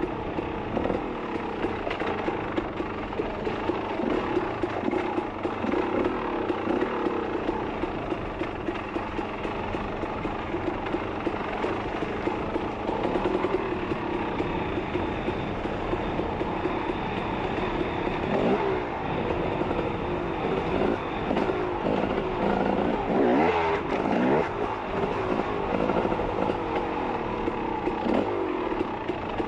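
Off-road motorcycle engine running under way on a trail, its pitch rising and falling with the throttle, with a cluster of quick revs in the second half.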